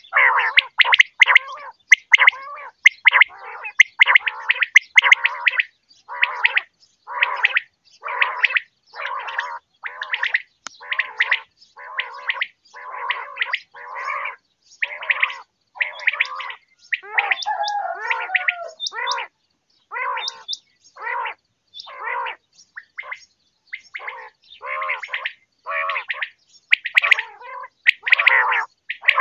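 Common quail calling: short, rough, gurgling notes repeated about twice a second, with one wavering, warbled call a little past the middle.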